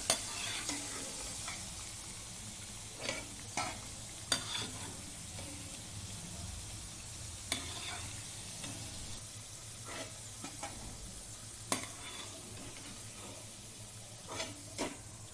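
Chakli frying in hot oil in a nonstick pan: a steady sizzle, broken by a few short sharp clicks of a utensil against the pan as the golden pieces are lifted out.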